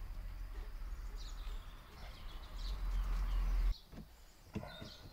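Outdoor background noise: a steady low rumble that cuts off suddenly near the end, with birds chirping faintly and a small click after it.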